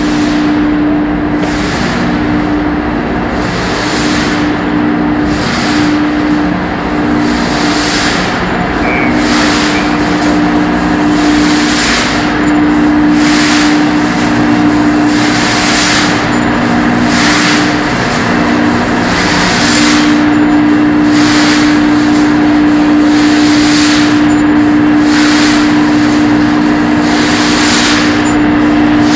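Loud, steady machinery noise of a tanker's cargo pump room running, a constant hum with two steady low tones. Brief hiss-like swells recur about once a second over it.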